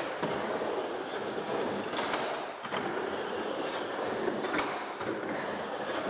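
Skateboard wheels rolling over a concrete bowl, a steady rumble, broken by a few sharp clacks of the board.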